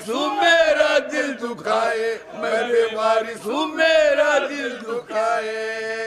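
Several men chanting an Urdu salaam, a devotional elegy for Imam Husain, together in a slow, wavering melody, ending on a long held note.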